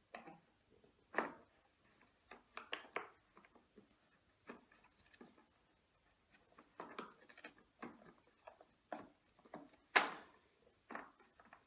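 Irregular clicks and knocks of hard plastic parts being handled as a new drive belt is worked onto a vacuum cleaner's brush roll. The sharpest knocks come about a second in and again near the end.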